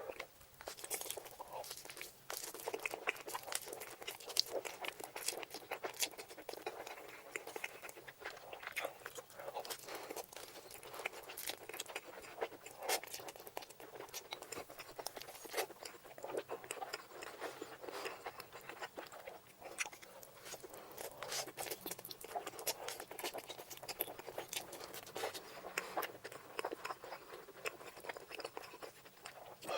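Close-miked eating of noodles: chewing with a dense, irregular run of wet smacks and mouth clicks.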